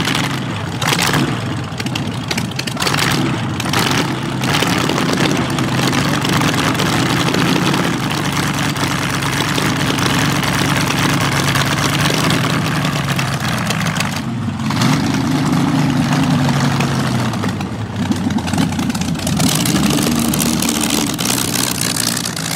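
Streamliner C-16's inline 16-cylinder engine, built from two Buick straight-eights joined end to end, running while the car stands still: idling unevenly at first, then blipped several times so its pitch rises and drops.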